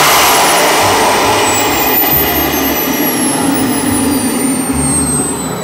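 Small KingTech jet turbine on a grill go-kart, running, its exhaust blown through a steel pipe running through the grill body. It makes a loud rushing noise with a thin high whine that falls steadily in pitch.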